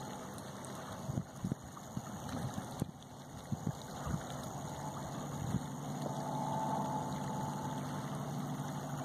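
Wind buffeting the microphone, then a motor engine starting up and humming steadily from about halfway through.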